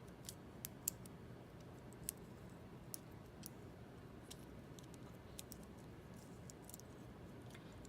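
Faint, irregular light clicks of small hardware parts being handled, over a low steady room hum.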